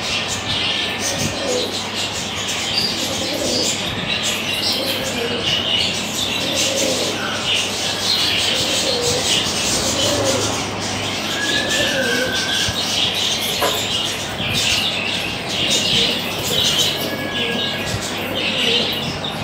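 Pigeons cooing, with a few short higher chirps over a steady background noise.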